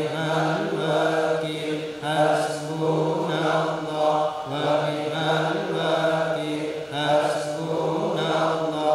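Sufi dhikr chanting: an Arabic phrase chanted over and over on a nearly level pitch, a new repetition starting about every two and a half seconds.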